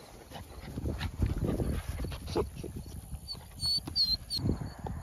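Footsteps and rustling on grass, close to the microphone, with a few short high squeaks about three and a half seconds in.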